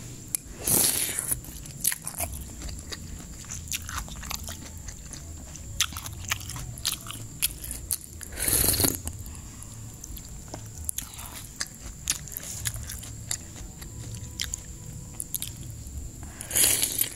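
A person eating soto ayam (chicken noodle soup with rice vermicelli and cabbage) close to the microphone: chewing and crunching with small clicks throughout. Three louder half-second noisy bursts come about eight seconds apart.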